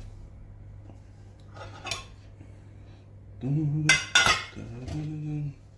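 A metal spoon and a metal mixing bowl of seasoned vegetables clinking and knocking: a small clink about two seconds in, then a couple of sharp clinks with two short stretches of a low steady tone around them in the second half.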